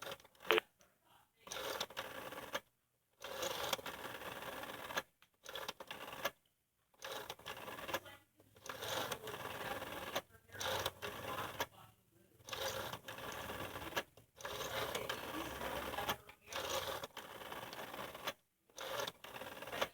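Stromberg-Carlson 500 rotary phone dial being dialed digit after digit: about ten runs of the dial spinning back with its clicking pulses, each separated by a short pause while the next digit is wound.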